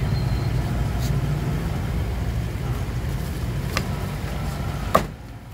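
Steady low street rumble with background voices, broken by a few light knocks and, about five seconds in, one sharp blow of a cleaver on a wooden chopping block as roast duck is cut.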